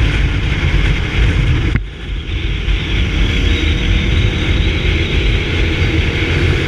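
Motorcycle on the move: engine rumble mixed with heavy wind noise on the rider's microphone, with a brief drop about two seconds in.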